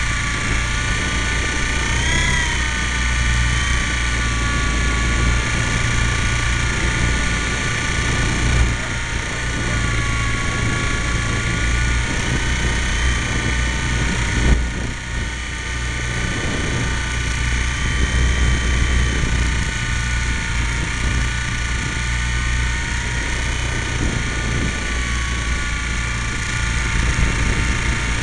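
Radio-controlled model helicopter heard from a camera mounted on the machine itself: a steady high whine from its motor and drive, the pitch wavering slightly as the rotor speed changes, over a low rumble of rotor wash on the microphone. A short knock about halfway through.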